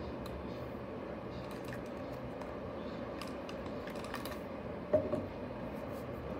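Hollow plastic toy being handled and turned over in the hand, giving light plastic clicks and taps, with a sharper knock about five seconds in as it is set back down on the table. A steady hum runs underneath.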